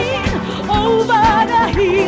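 Live band playing a gospel praise song, with a lead melody held in long notes with vibrato over steady bass and drums.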